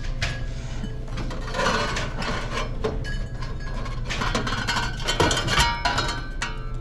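Hand tools clinking and tapping against metal parts, with short metallic rings, over a steady low machine hum.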